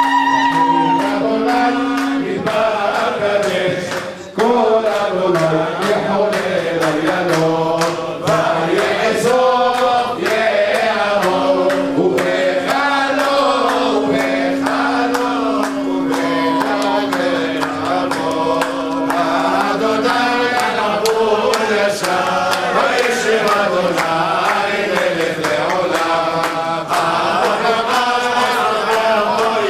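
Men singing a chant together, a lead voice amplified through a microphone, with a long held drone note partway through and frequent sharp taps.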